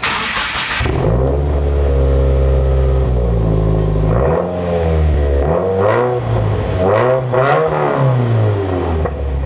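A car engine with a hiss at the start, then running at a steady deep idle and revving up and down several times before fading out.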